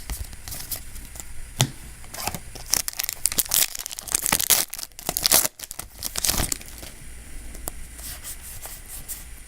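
Foil Yu-Gi-Oh! booster pack wrapper being torn open and crinkled by hand, a dense run of crackles busiest through the middle.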